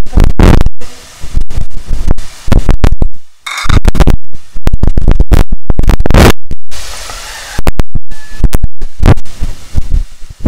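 Hot oil sizzling and crackling around mandazi deep-frying in a pot, very loud and distorted, cutting in and out abruptly again and again.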